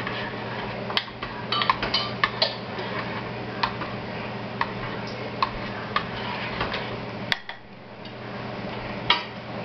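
A spoon clinking and scraping against a crock pot as sauced cocktail sausages are stirred: irregular clinks, several in quick succession about two seconds in, over a steady low hum.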